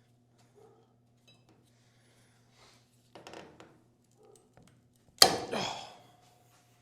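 A sudden loud clatter about five seconds in that rings briefly and dies away, after a softer knock a little past halfway, over a steady electrical hum.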